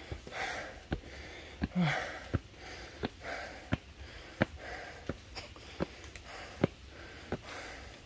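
A hiker breathing hard while climbing steps, a noisy puff of breath about every second, with footsteps on the stair treads landing about every three-quarters of a second.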